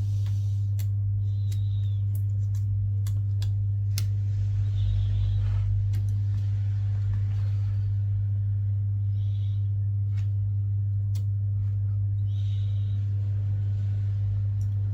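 A steady low hum, with scattered light clicks and a few short scratchy sounds of small tools or parts being handled.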